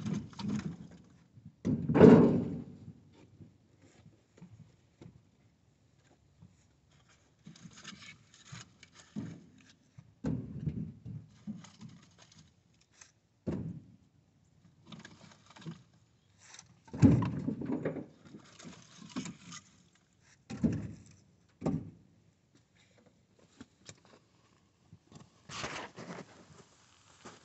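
Split firewood logs being handled and tossed onto a pile: a series of irregular dull thunks and knocks, with the loudest ones about two seconds in and again about two thirds of the way through, and wood scraping and rustling between them.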